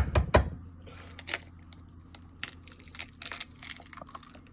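Eggshells being cracked open by hand: a few sharp taps at the start, then scattered crackling and crunching as the shells are broken apart.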